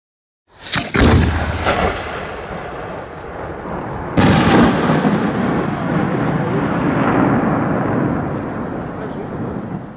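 A 100 mm (4-inch) aerial firework shell: the lift charge thumps it out of the mortar about a second in, and about three seconds later the shell bursts with a sharp bang. The burst's report then rumbles and echoes away for several seconds.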